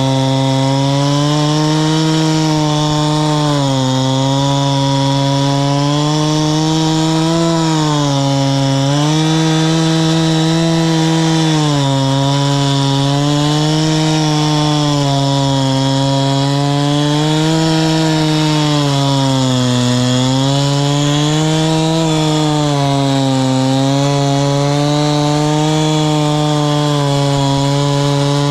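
Two-stroke Husqvarna chainsaw in a chainsaw mill, running at full throttle under load as it rips a log lengthwise. The engine pitch dips and recovers every few seconds as the cut loads it.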